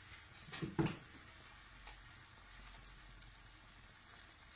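Tikka masala sauce with cream and butter simmering on low heat in a frying pan: a faint, steady sizzle. One brief, louder sound comes just under a second in.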